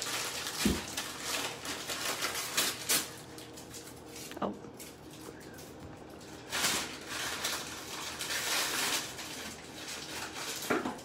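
Thin plastic bag crinkling and rustling as hands dig through it, in irregular bursts with the loudest crackling about two-thirds of the way in.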